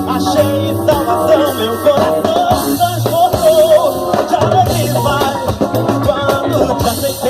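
Band playing an instrumental passage of a gospel rock song: drum kit, bass, keyboards and electric guitar, with a wavering lead melody over a steady beat.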